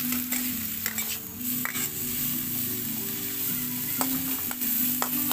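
Chopped aromatics sizzling in hot oil in a wok while a stainless steel spatula stirs them, with scattered scrapes and clicks of metal on the wok.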